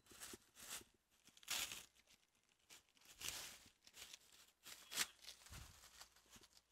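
Packing tape and wrapping being torn and crinkled off a parcel in several short bursts, the loudest about one and a half seconds in.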